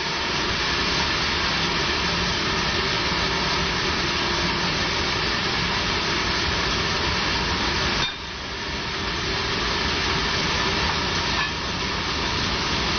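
Log band sawmill running, its blade sawing a teak log with a loud, steady noise. The sound dips briefly about eight seconds in and again near the end.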